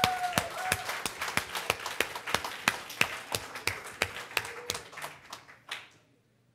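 A small audience clapping: distinct, quick claps that thin out and stop about six seconds in.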